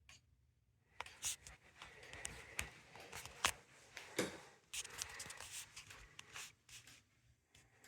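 Faint rustling and handling noise with scattered sharp clicks and taps, starting about a second in and fading out near the end.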